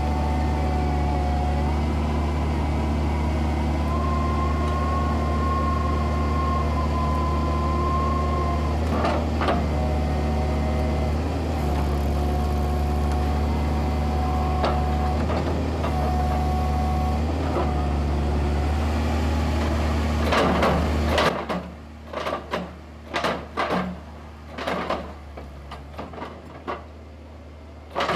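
Tescar CF3 S hydraulic piling rig working: its diesel engine runs under load with a steady hum and a hydraulic whine that steps up and down in pitch as the drill is driven. About 21 seconds in the engine drops back and a run of metal clunks and knocks follows from the drilling tool and kelly bar.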